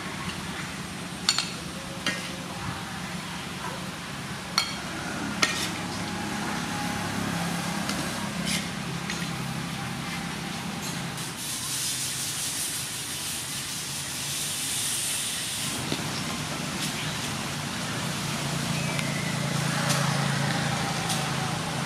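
Metal spatula clinking and scraping against the wok and plate as a stir-fry is served out, with a few sharp clinks in the first several seconds. A high hiss of sizzling from the hot wok rises for a few seconds midway.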